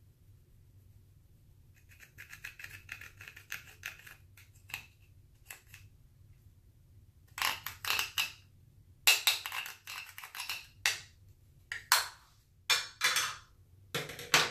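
Clear slime being worked by hand as eyeshadow is mixed in. A rapid fine crackling starts about two seconds in, followed by several short, louder bursts of clicking and popping.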